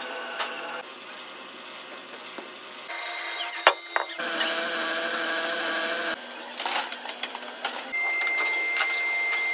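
Steady workshop machine hum that changes abruptly several times, with sharp metal clanks a little over a third of the way in as a cast brake drum is handled, and a quick run of knocks past the middle.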